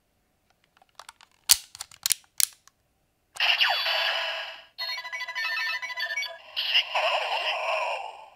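DX Mirror Zi-O Ridewatch toy clicked several times, then playing its electronic sound effects through its small speaker: a falling sweep followed by chiming, stepped electronic tones. These are the normal Zi-O Ridewatch sounds played in reverse.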